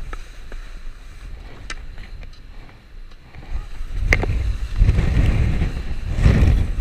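Skis running over snow with wind rushing on the camera microphone, a low rumbling noise. A sharp click comes about four seconds in, and after it the rush grows much louder.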